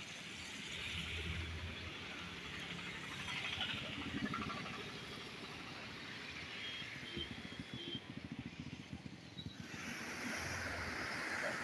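Passing road vehicles, engine hum and tyre noise, over a steady wash; about ten seconds in, a louder, even hiss of fast, churning floodwater rushing past a concrete edge takes over.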